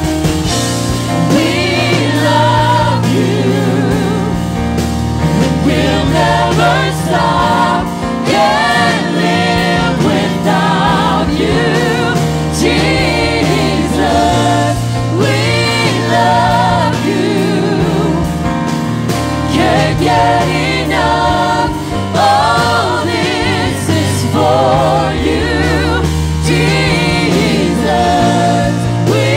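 A church worship team of several singers leading a contemporary worship song live, with band accompaniment over a steady bass line.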